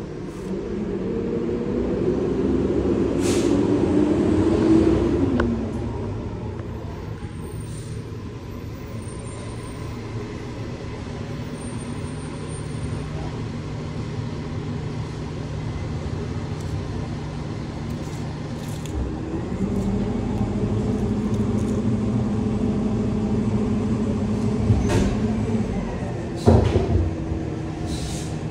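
A motor vehicle's engine running. Its note rises over the first few seconds and then drops away, hums lower and steadier for a while, and steps up again about two-thirds of the way through. There is a short sharp knock near the end.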